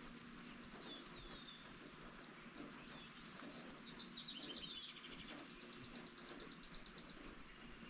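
Songbirds singing over steady light rain: a falling chirp early, then a falling run of quick notes, then a fast high trill lasting about two seconds near the end.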